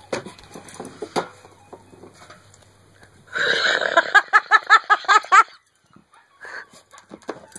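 Recorded coyote pup distress cries played from a phone app's speaker: a rapid run of about eight high, rising yelps over two seconds, about three seconds in. A few knocks and scuffs come before them.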